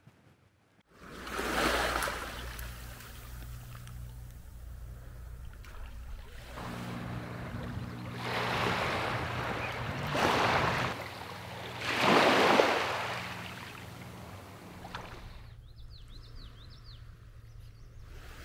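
Small waves washing in over a pebble shore, several rushing swells a second or so long, over a steady low hum. A few short, high bird chirps come near the end.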